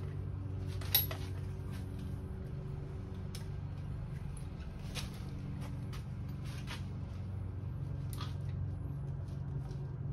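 A steady low hum with scattered light clicks and taps, the sharpest click about a second in.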